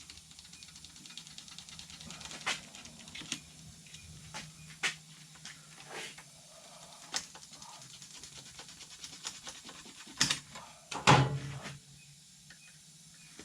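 Hand-tool work cutting old nets off an ATV's guard: scattered light clicks and scrapes, with a louder knock about eleven seconds in.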